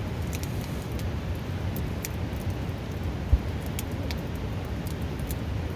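Wood campfire crackling with scattered sharp pops over the steady rush of a river, with a single low thump about three seconds in.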